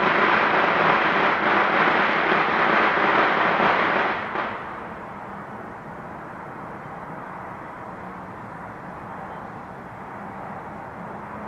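Dense, continuous crackling of neighborhood New Year's fireworks and firecrackers for about four seconds, then it drops off fairly suddenly to a much quieter steady outdoor background with a faint low hum.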